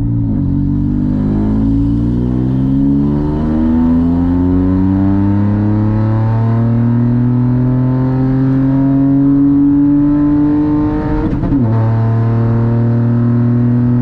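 Remapped Stage 3 VW Up TSI's turbocharged 1.0-litre three-cylinder engine pulling hard under full throttle, heard from inside the cabin, its pitch climbing steadily through the gear. Near the end the pitch drops sharply at an upshift, then holds steady.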